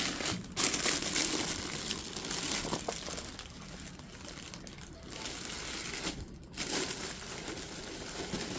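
Packaging crinkling and rustling as it is handled and pulled at, louder in the first few seconds.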